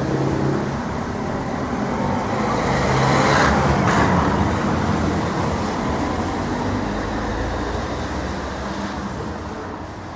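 Street traffic: a vehicle passing along the street, its engine and tyre noise swelling to a peak about three to four seconds in and then slowly fading.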